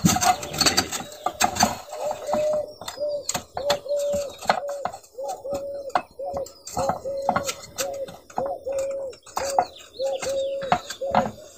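Glass globe of a kerosene hurricane lantern being twisted and pressed into its metal frame: short repeated squeaks at one pitch, about twice a second, mixed with light clinks of glass against metal as the globe is worked into its seat.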